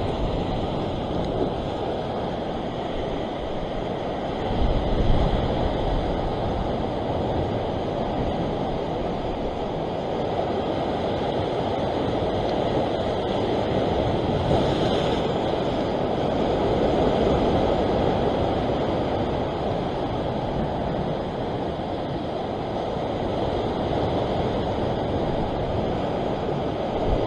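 Ocean swell surging and washing over a rock ledge, with wind buffeting the microphone; the rushing noise swells and eases slowly, with a surge about five seconds in and a broader one around the middle.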